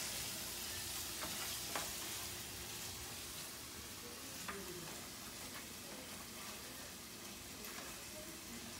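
Ground beef and onions sizzling as they brown in a skillet, a steady frying hiss that grows slightly fainter.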